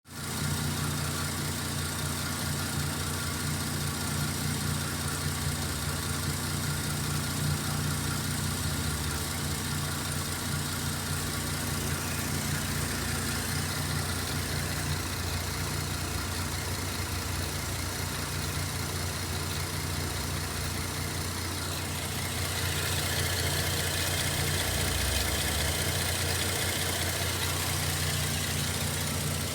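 Holden Commodore 3.6-litre V6 idling steadily, an engine with about 150,000 km on it. A higher hiss grows slightly louder about two-thirds of the way through.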